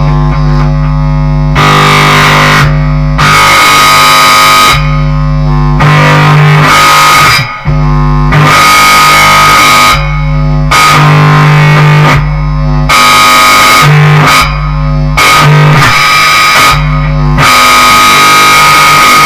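Bass guitar played through a distortion pedal and a small guitar amp: loud, heavily distorted sustained notes that shift to a new pitch every second or two.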